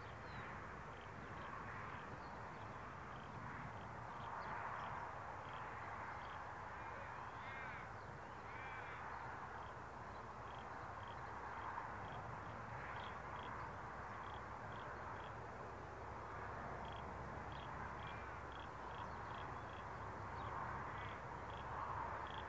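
Birds calling: repeated harsh calls swelling now and then, with short high chirps throughout, over a low steady rumble.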